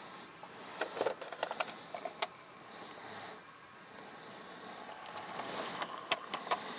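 Scattered light clicks and rattles from a camp pot and dehydrated meal pouches being handled while boiling water goes into the pouches.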